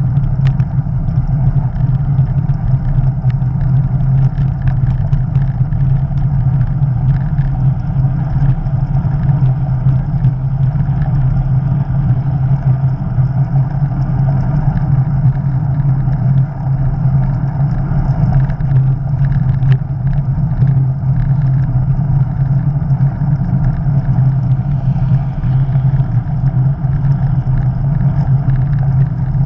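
Steady wind rush and rumble on the bike-mounted camera's microphone from cycling at speed on a tarmac road, with tyre noise underneath.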